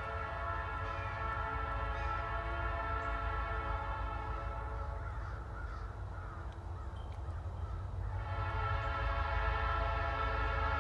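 Hartwell Railroad locomotive air horn sounding for a grade crossing as the train approaches: a long chord-like blast, a pause of about four seconds, then another blast starting about eight seconds in, louder than the first, over a steady low rumble.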